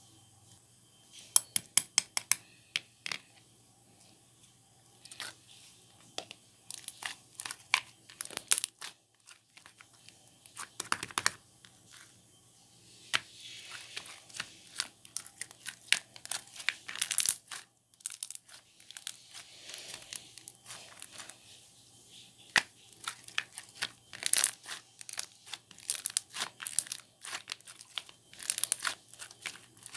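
Slime being squeezed, stretched and pressed by hand, giving irregular runs of sticky crackling, popping clicks and soft tearing sounds, with short pauses between handfuls.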